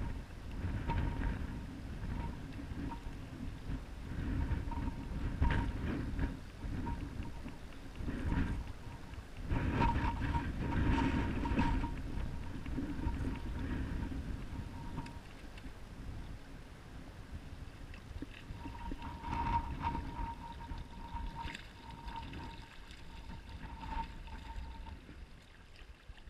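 Wind buffeting the microphone in uneven gusts, loudest about ten seconds in, with water slapping against the hull of a small boat on choppy water.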